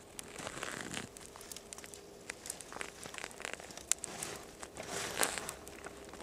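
Freshly lit kindling fire of bark and dry twigs catching, crackling with many sharp snaps over a soft rustling hiss, with a louder rustle about a second in and again near the end.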